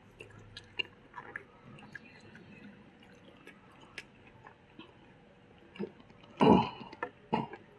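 Close-up mukbang eating sounds of people eating rice and egg curry by hand: soft chewing, small wet mouth clicks and fingers working rice on banana-leaf plates, with two louder short mouth noises near the end.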